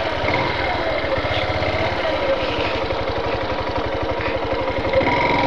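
Yamaha Factor 150's single-cylinder, air-cooled four-stroke engine running steadily at low speed. The engine note sags a little, then climbs again toward the end.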